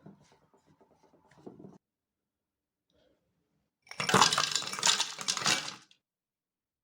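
Kitchen dishes and utensils clinking: soft rapid tapping at first, then about two seconds of loud clattering about four seconds in.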